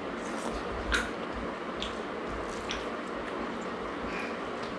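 People eating a rice meal by hand: quiet chewing and squishing, with a few light clicks, the clearest about a second in.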